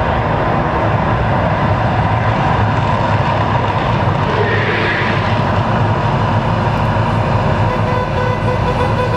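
Steady, loud roar of the Mirage volcano attraction erupting, its gas-fed flame column shooting up and dying down.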